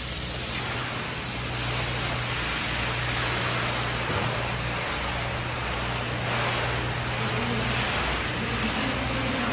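Spray foam gun hissing steadily as it sprays two-component closed-cell polyurethane foam onto a metal barn roof, over a constant low hum.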